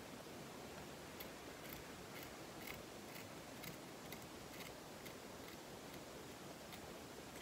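Small scissors snipping through fake fur and its fabric backing, faint snips about twice a second, trailing off near the end.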